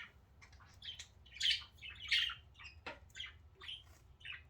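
Budgerigars chattering: a quick run of short, high chirps and squawks, several a second, with two louder calls about a second and a half and two seconds in.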